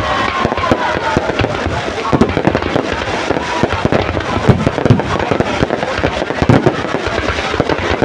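Fireworks display: a dense, continuous run of bangs and crackles from shells going off one after another.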